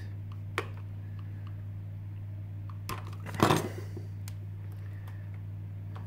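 A few light clicks and one brief scrape, about three and a half seconds in, as a utility knife scores the outer sleeve of a Cat5e cable and the sleeve is worked loose, over a steady low hum.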